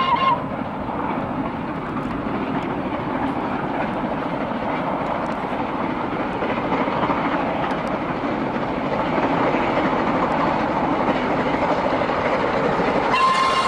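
Steam locomotive hauling its train: a steady rush of exhaust and running noise, growing a little louder in the second half. The locomotive's whistle sounds near the end.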